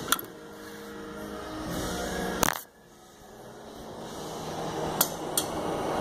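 Camera handling noise: a few sharp knocks and clinks as the camera is picked up, moved and set down. The loudest knock comes about two and a half seconds in, with lighter clicks near the start and around five seconds in.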